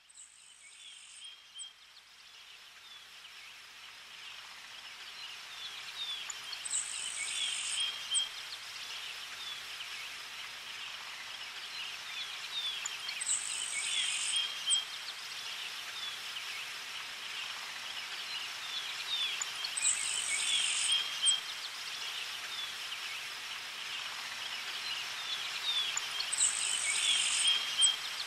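Looped nature-ambience track: bird chirps with a high insect-like trill about a second long that comes back about every six and a half seconds, fading in over the first several seconds.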